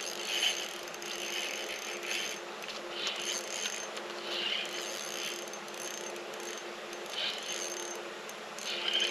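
Fishing reel ticking in short, irregular bursts as a hooked lake trout is played through the ice, over a steady low hum.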